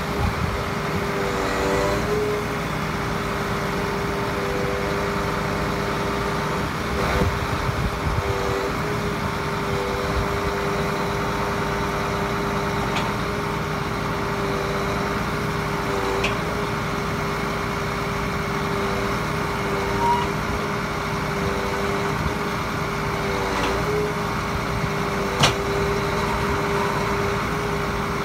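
Truck engine running to drive a lorry-mounted loader crane's hydraulics as it swings and lowers a brick clamp loaded with pallets of tiles: a steady hum whose note steps slightly up and down as the crane works, with a few short knocks, the sharpest near the end.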